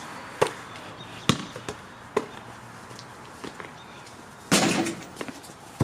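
A basketball bouncing on a hard court: a handful of separate sharp bounces, irregularly spaced, with a short louder burst of noise about three-quarters of the way through.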